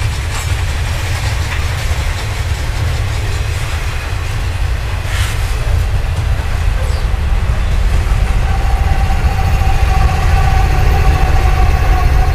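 Double-stack container well cars rolling past with a steady, heavy rumble of wheels on rail and a few sharp clicks. From about eight seconds in, a steady whine and engine sound grows louder as the rear distributed-power (DPU) locomotive approaches.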